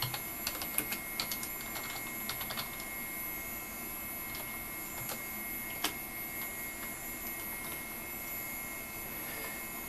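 Computer keyboard keys being typed: a quick run of key clicks over the first few seconds, then a single louder keystroke near the middle. A steady hum with a high whine runs underneath.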